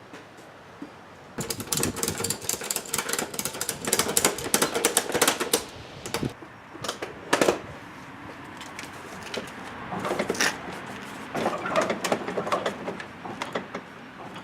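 Ratchet strap being cranked tight, in rapid runs of clicks: one burst starting about a second and a half in and lasting several seconds, and a second burst around ten seconds in.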